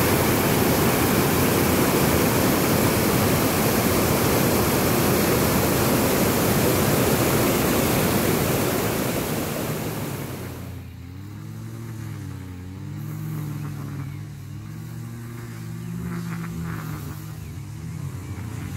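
Waterfall: a steady rush of water pouring over a rock ledge, which fades out about ten seconds in. After that comes a quieter low hum of several tones that slowly wavers up and down in pitch.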